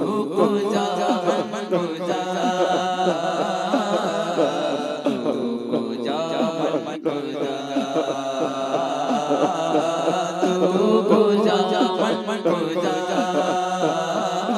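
A man singing a naat, an unaccompanied devotional Urdu-Persian song, through a microphone, with chanted zikr underneath. A single sharp click about halfway through.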